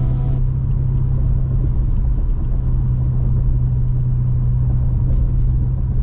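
A car driving at steady speed, heard from inside the cabin: a steady low rumble of road and engine noise with a constant low hum.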